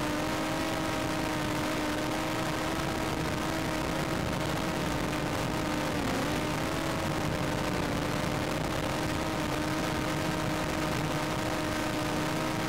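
A steady motor hum holding one pitch with several overtones, dipping briefly about six seconds in.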